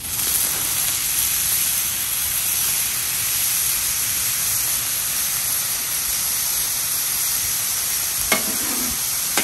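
Frozen cauliflower stir fry sizzling on a hot Nexgrill flat-top griddle. The steady hiss starts suddenly as the food hits the plate and holds at an even level, with one short knock near the end.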